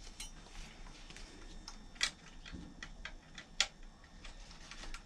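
Small plastic parts of an RC scale jeep being handled and pushed into place as its canopy is fitted: light scattered taps and clicks, two sharper clicks about two seconds and three and a half seconds in.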